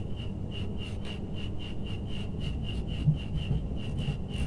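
A screwdriver turning in the terminal screw of a miniature circuit breaker as a wire is clamped: light rubbing and scraping, with a few small knocks about three seconds in. Throughout there is a steady high-pitched pulsing chirp, about six pulses a second.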